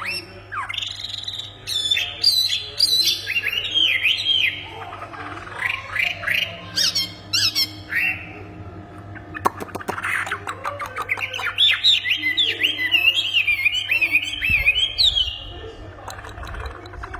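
A bird known in Indonesia as the wambi singing loudly and nonstop, a busy run of varied whistled, sliding and squawky notes, with a rapid clicking phrase about halfway through.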